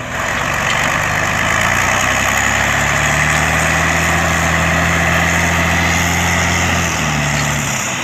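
Diesel engine of a Randon RK 430B dump truck running, its pitch stepping up about three seconds in as it is revved to work the hoist and tip the loaded body, then dropping back near the end.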